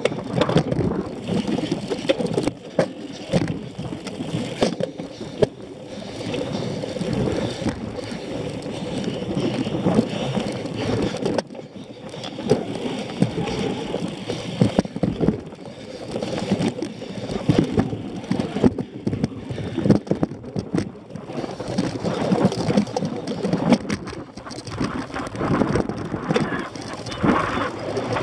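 Cyclocross bike ridden over bumpy grass, heard from a camera mounted on the handlebars: a continuous rumble of the tyres on turf with many small knocks and rattles as the bike jolts over the uneven ground, plus wind on the microphone.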